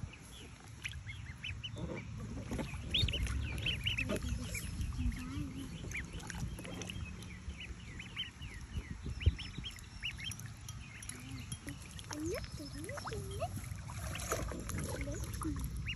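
A group of ducklings peeping, with many short, high chirps in quick succession throughout.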